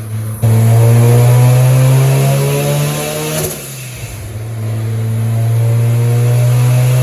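Rotary engine held at steady high revs. It drops off sharply about three and a half seconds in, then builds back up and holds steady again.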